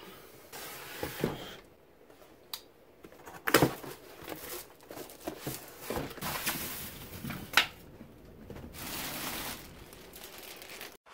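Crinkling and rustling of packaging being handled, with sharp clicks about three and a half and seven and a half seconds in.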